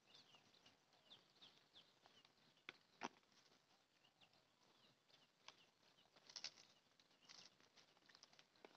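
Near silence, with faint small birds chirping now and then and a few soft clicks and rustles from food and plastic bags being handled on a tarp.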